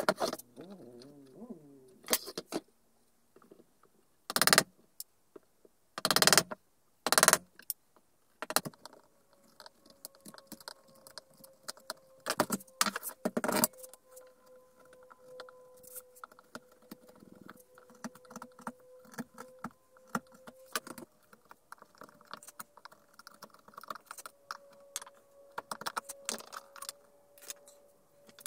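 Chisel cutting a notch into the edge of a hardwood board by hand: a few loud cutting strokes in the first third, then a long run of small clicks and scrapes as the chisel pares the notch clean. A faint steady hum sits underneath from about a third of the way in.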